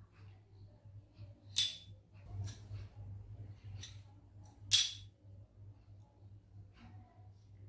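A small metal spoon clinking and scraping against a miniature steel pot and glass bowl while scooping vermicelli pudding: a few sharp clinks, the loudest just under five seconds in, with soft scraping between.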